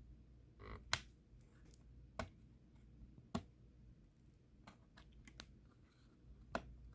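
Sparse light clicks and taps, four sharper ones among fainter ticks, as the laptop's battery cable connector is worked loose from the motherboard by hand, over a faint low hum.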